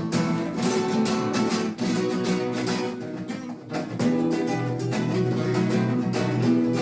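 Acoustic guitar music played with fast strummed, flamenco-style chords.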